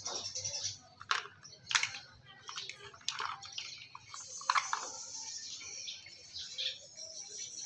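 Close-up eating sounds of boiled green mussels being handled: about half a dozen sharp clicks and cracks as the shells knock together and are pried apart, with soft mouth sounds of eating between them. A steady high-pitched insect drone runs behind.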